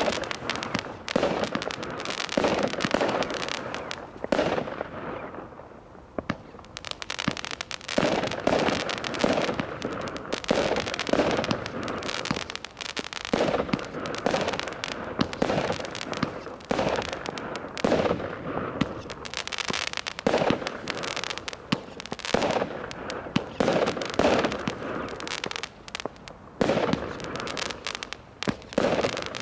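Great Grizzly Tidal Surge 25-shot consumer firework cake firing shot after shot. Launch thumps come about once a second, with dense crackling from its crackling dragon-tail effects, and the crackle eases briefly a few seconds in.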